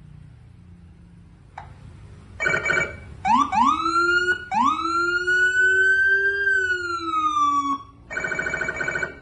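Electronic police siren cycling through its tones. A short buzzing blast comes first, then two quick rising whoops and one long wail that rises and slowly falls, then another buzzing blast near the end.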